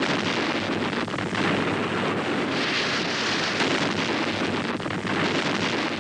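Explosive charges going off together on a hillside: a sudden start, then a continuous dense rush of blast noise.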